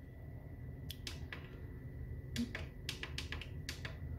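Front-panel push buttons of a Kunkin KP184 DC electronic load clicking as they are pressed through its settings menu. A couple of clicks come about a second in, then a quick run of about eight presses in the second half.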